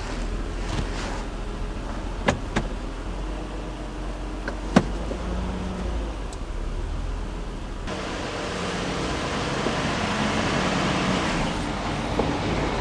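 Nissan Murano Z51's V6 engine idling while the CVT is run through reverse, neutral and drive to circulate fresh transmission fluid. A few sharp clicks come about two and a half and five seconds in, and a steady rushing noise grows louder from about eight seconds in.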